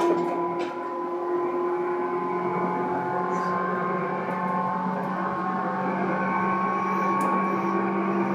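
Tobu 9000 series electric commuter train running, heard from inside the car: steady rolling rumble with several steady whining tones, one lower tone coming in about two seconds in.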